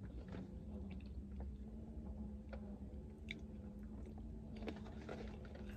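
Faint chewing of french fries, with small scattered clicks, over a steady low hum.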